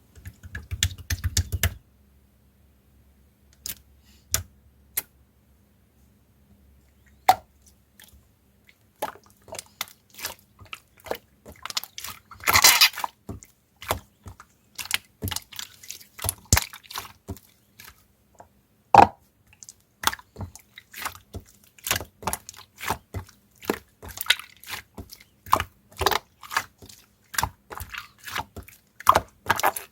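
Slime being squished and pressed by hand, giving sharp sticky clicks and pops. A few come scattered at first, then they come rapidly from about eight seconds in.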